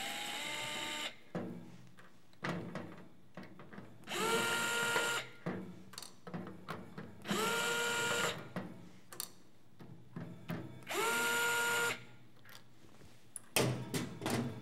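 DeWalt cordless electric screwdriver running in short spells, each spinning up in a rising whine to a steady pitch for about a second, as it backs screws out of a metal cover plate. It runs four times, about three and a half seconds apart, with light clicks of handling in between.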